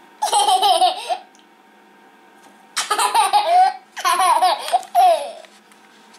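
Two-year-old boy laughing in high-pitched peals: one burst right at the start, then three more close together from about three seconds in.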